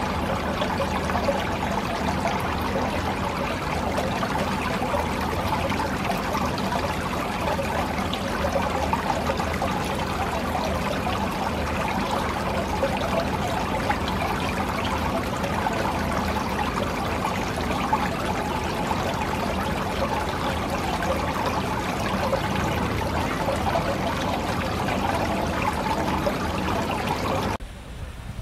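Small garden fountain: a water jet splashing steadily back into its stone basin. The splashing stops abruptly near the end.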